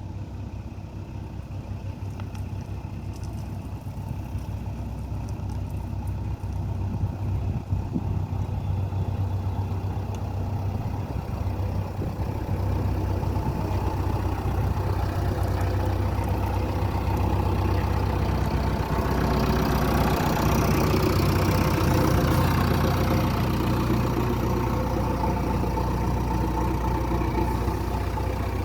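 JCB 3DX backhoe loader's diesel engine running steadily, growing louder and working harder toward the middle, then easing off slightly near the end.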